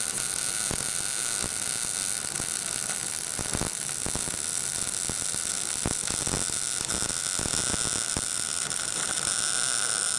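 MIG welder arc running continuously, a steady hiss with irregular crackles, as a weld bead is laid around the rusted exhaust pipe-to-catalytic-converter joint to fill a worn-out spot.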